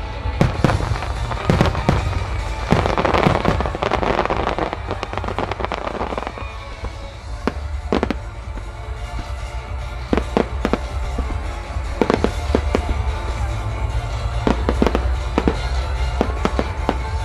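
Fireworks going off in a string of sharp bangs over loud music with a heavy bass, with a dense crackling from crackle stars for a few seconds near the start.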